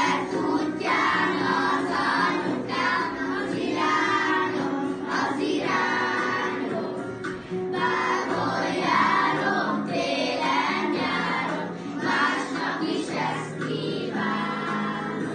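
A group of young schoolchildren singing a song together as a choir.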